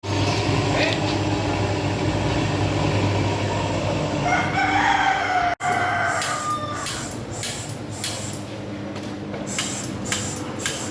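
A machine running with a steady hum. A rooster crows about four to five seconds in. After a short break in the sound, a run of sharp clacks comes roughly twice a second over the hum.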